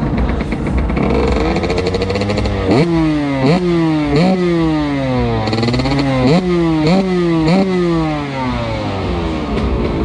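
Two-stroke engine of a TM SMR 125 FI supermoto fitted with a Pro Circuit Shorty R304 silencer. It runs low for a few seconds, then is blipped about six times, each a quick rise in revs that falls back slowly.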